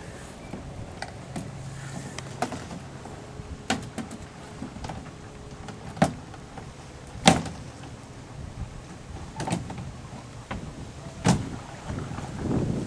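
About a dozen irregular sharp knocks and clicks, the loudest two about six and seven seconds in, over a steady faint background.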